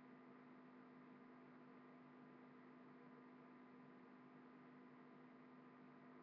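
Near silence: room tone with a faint, steady hum and hiss.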